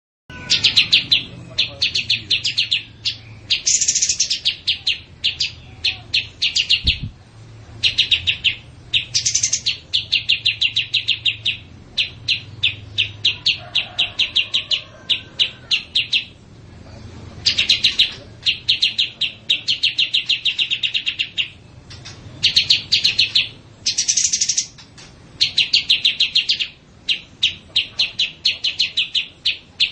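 Small songbirds chirping in rapid trains of sharp, evenly spaced notes, bouts of one to two seconds separated by short pauses, with now and then a higher note; a mixed recording of agitated, fighting-call house sparrows together with kapas tembak and cililin.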